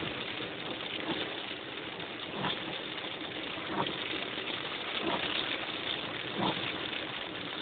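Steady hiss of heavy rain, with a short, sharper sound coming back about every second and a half.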